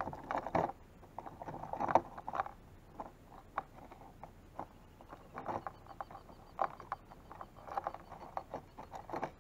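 Irregular knocks, scrapes and rattles as a freshly landed fish and fishing gear are handled against the hull of a plastic sit-on-top kayak.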